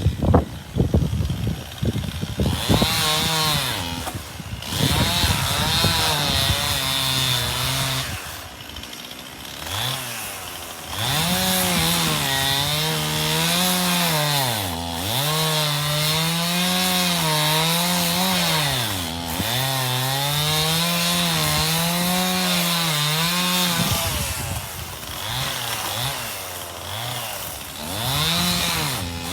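Two-stroke chainsaw cutting ash wood. The engine revs high, then its pitch sags and recovers over and over as the throttle is worked and the chain loads up in the cut. A few sharp knocks come in the first couple of seconds.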